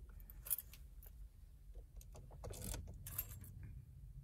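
Car keys jingling and clicking at the ignition of a 2013 Ford Fusion just before a key start, a few short rattles over a faint low rumble.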